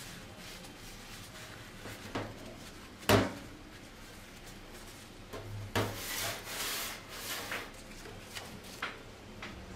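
Paper towel rubbing and patting raw chicken breasts dry on a plate. There is one sharp knock about three seconds in, and a stretch of louder paper crinkling around six to seven seconds.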